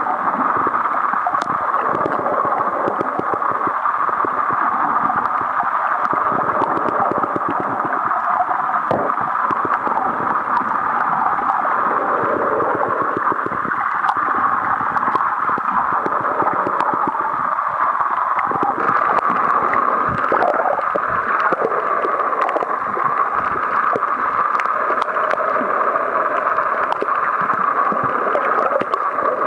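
Underwater water noise picked up by a waterproof Sony DSC-TX5 compact camera held below the surface: a steady rushing hiss with gurgling, centred in the middle range with little high end.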